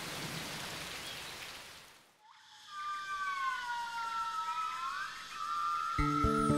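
Heavy rain hissing steadily, fading out about two seconds in. Long wavering whistle-like tones then glide up and down, and music with a steady beat comes in near the end.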